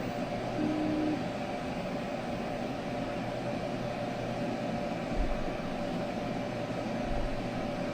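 Weedo M2 desktop 3D printer running its first test print: a steady mechanical whir of its fans and stepper motors, with a few steady tones. A short higher tone about half a second in.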